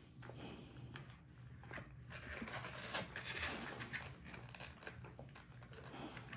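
Two-week-old American bully puppies stirring in their bedding: soft rustling with scattered small clicks, loudest about three seconds in, over a steady low hum.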